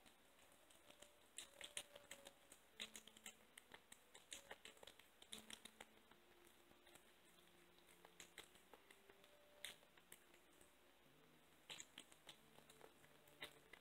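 Faint, irregular wet clicks and smacks of a blue tortoiseshell kitten eating raw ground chicken and raw egg from a bowl.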